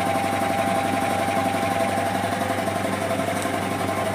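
Belt-driven single-piston air compressor with a 1 HP single-phase electric motor running steadily: a steady hum with a rapid, even pulse from the pump.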